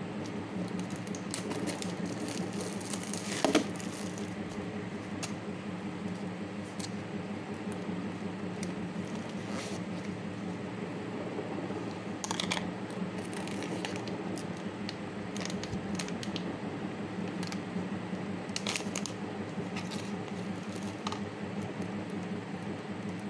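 Plastic food packaging of an instant tteokbokki cup being handled and unwrapped: crinkling and rustling of wrap, bag and foil packet, with a louder snap about three and a half seconds in and further crinkles near the middle and later on. A steady low hum runs underneath.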